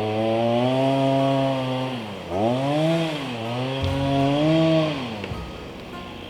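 Chainsaw engine revving, held high for stretches with two brief dips in pitch, then falling back toward idle about five seconds in.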